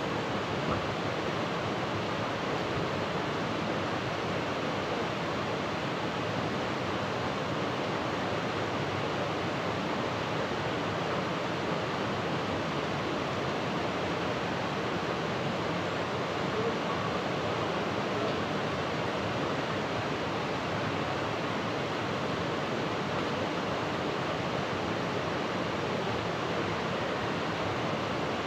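Continuous, even rush of water, unbroken and unchanging.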